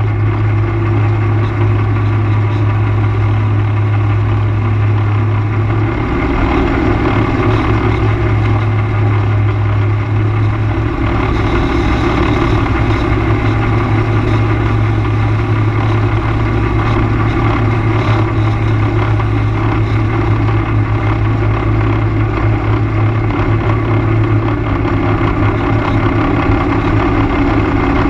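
ATV engine running at a steady cruise as it is ridden along a gravel road, a constant low drone with hiss from the tyres and air over it. The engine note shifts slightly a few seconds in.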